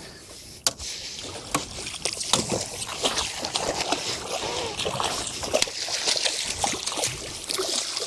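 Water splashing and sloshing around a small boat, with many sharp knocks and clicks scattered throughout.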